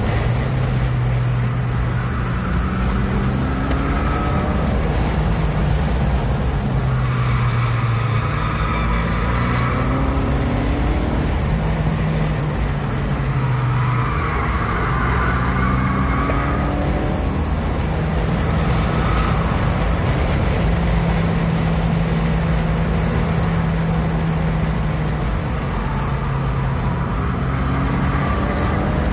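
2016 Ford Focus RS's turbocharged 2.3-litre four-cylinder engine heard from inside the cabin while driven hard through corners, its note rising and falling as the throttle goes on and off, over steady road noise.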